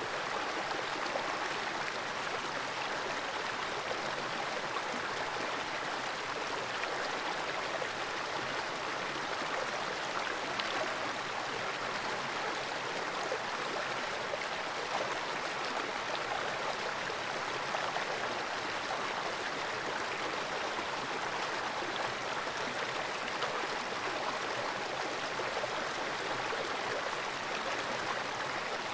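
Fast-flowing creek water rushing through a small pool, picked up by a camera sitting underwater: a steady, even rushing hiss.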